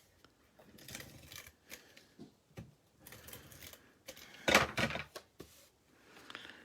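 Cardstock being handled and cut on a sliding paper trimmer: rustling and a few short rasping strokes, the loudest a little past halfway.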